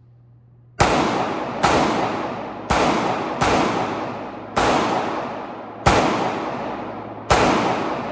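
Seven shots from a BUL Armory SAS II Ultralight 9mm pistol, fired one at a time about a second apart at an uneven pace. Each shot echoes and dies away slowly.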